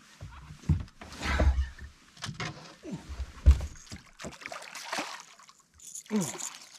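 Water splashing and knocking against a small boat while a hooked striped bass is brought in, with deep thumps about a second in and again past three seconds.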